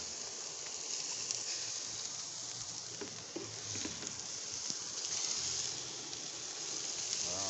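Chicken drumsticks sizzling on a barbecue grill: a steady crackling hiss with a few faint pops.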